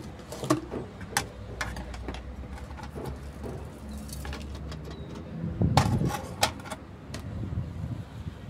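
Ceramic flowerpots handled on a table: scattered clicks and knocks, with a louder clatter about six seconds in as a pot is set down on its plate. A low steady rumble runs underneath.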